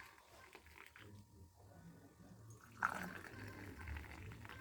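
Liquid being poured faintly, with one sharp clink about three seconds in, over a low steady hum.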